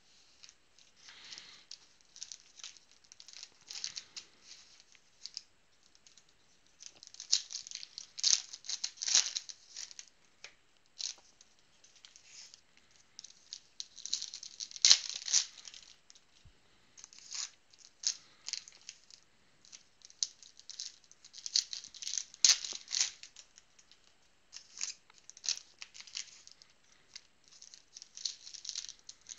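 Foil trading-card pack wrappers crinkling and tearing as football card packs are opened by hand, in irregular bursts of rustling with a few sharp clicks.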